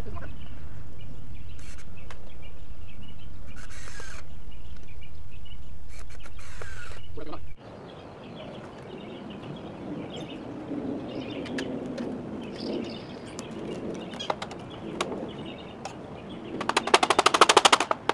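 A steady low rumble stops abruptly about seven and a half seconds in. Near the end, a cordless impact driver hammers a screw into the frame's lumber in a fast, loud rattle of rapid strokes lasting about two seconds.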